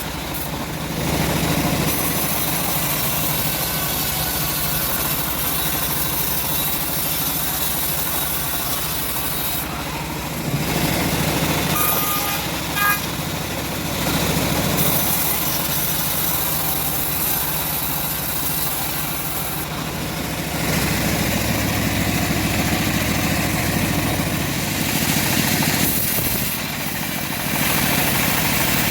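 Homemade bandsaw sawmill running and cutting a teak log. Its steady machine noise swells and eases several times as the cut goes on.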